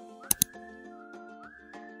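Light background music with a whistled tune over it. Two sharp clicks come close together about a third of a second in and are the loudest sounds.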